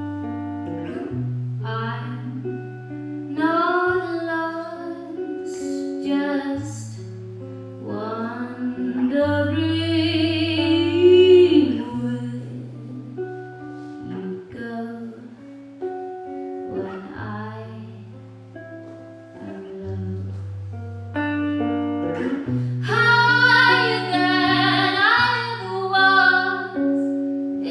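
A woman singing a song live while accompanying herself on guitar, with a wavering vibrato on long held notes. The sung phrases come with short guitar-only gaps between them.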